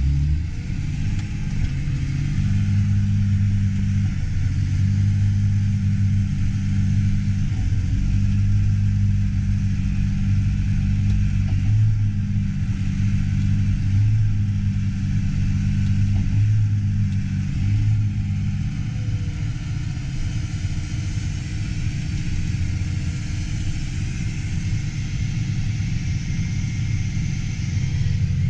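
Diesel engine of a farm harvest machine running steadily under load with a constant low hum. About two-thirds through, the note turns rougher and less tonal, then evens out again near the end.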